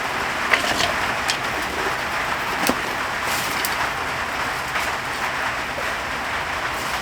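Heavy rain falling steadily, an even hiss with a few sharper drop impacts scattered through it.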